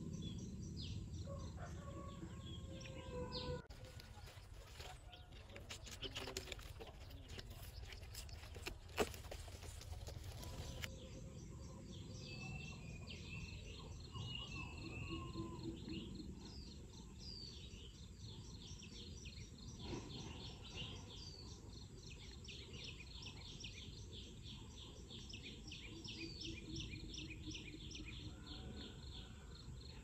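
Rural outdoor ambience with small birds chirping over a low background hum of open air, and one sharp click about nine seconds in.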